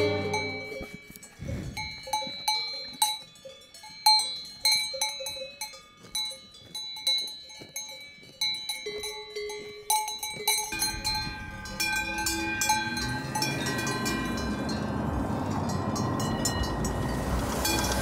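Cowbells on grazing cattle clanking irregularly, each strike ringing briefly. From about ten seconds in, a steady rumbling noise rises and takes over while the bells fade.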